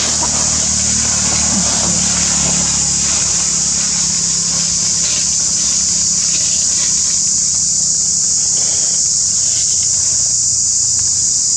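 A steady, loud, high-pitched insect chorus drones without a break. A low, even engine hum runs underneath and fades out about nine seconds in.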